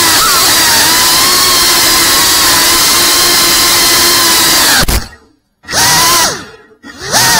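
FPV quadcopter's electric motors and propellers whining steadily, the pitch shifting with throttle. Near the end the sound cuts out twice for about half a second each, and each time it spools back up with a rising whine.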